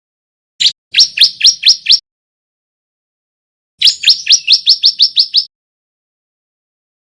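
Bar-winged prinia (ciblek) male singing, the song of a young bird learning its notes. A single sharp note, then a quick run of five chirps, and after a pause of about two seconds a longer run of about ten chirps, some six a second.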